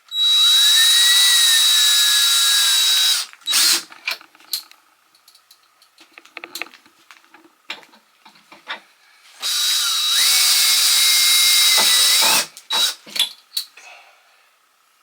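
Power drill running in two long runs of about three seconds each, driving screws out of closet shelving. The motor whine rises as it spins up and dips under load. A few short trigger bursts and light knocks follow each run.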